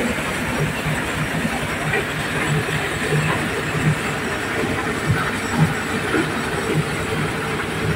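Diesel-driven corn sheller running steadily while threshing corn cobs, a continuous mechanical clatter of engine and shelling drum.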